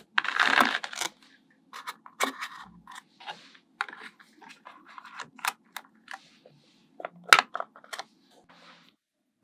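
Small magnetic balls clicking and snapping together as they are placed and pushed into shape: irregular sharp clicks with short rattling bursts, the loudest click about seven seconds in.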